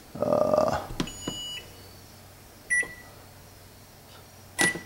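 Microwave oven keypad beeping as its buttons are pressed: three short electronic beeps, each with the click of a key, the first higher in pitch and a little longer. A brief, louder noise comes just before the first beep.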